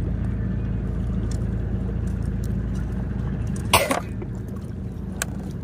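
A steady low hum, with a short sharp clatter about two-thirds of the way in as a fishing rod is set down on shoreline rocks, and a faint click near the end.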